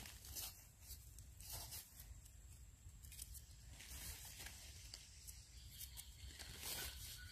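A knife blade scraping soil off the white stem base of a freshly pulled red-capped Amanita mushroom, with leaf litter rustling as it is picked from the forest floor. The scraping comes as several short, faint strokes.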